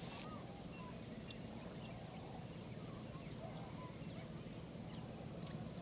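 Quiet rural ambience: scattered short bird chirps over a low, steady outdoor rumble.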